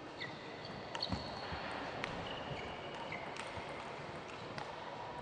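Table tennis doubles rally: the ball clicking sharply off the bats and the table, a handful of knocks roughly a second apart, the loudest about a second in. Short high squeaks of players' shoes on the court floor come between the knocks.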